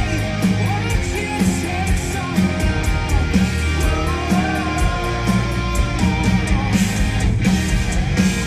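Live rock band playing: distorted electric guitar, bass guitar and drums, with a steady drum beat of about two hits a second.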